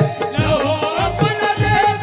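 Live qawwali music: singing and a melody over hand drums, dholak and tabla, playing a steady beat of about four strokes a second.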